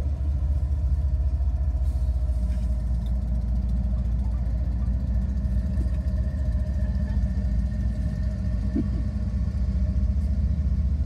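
BNSF diesel locomotives of a freight train rolling past close by, a steady deep engine rumble that thickens a little about two and a half seconds in.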